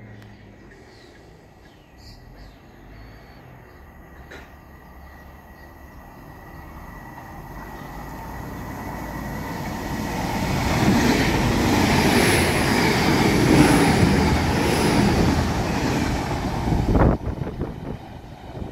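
TransPennine Express Class 802 bi-mode train running through the station without stopping: a rumble of wheels on rail that builds slowly as it approaches, is loudest for several seconds as it passes, and drops away abruptly near the end. Faint bird chirps early on.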